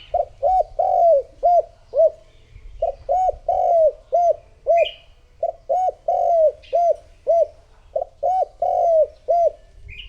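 Spotted dove cooing in four repeated phrases, each a few short coos with one longer, drawn-out coo in the middle: the male's territorial call, used as a lure to draw in wild doves.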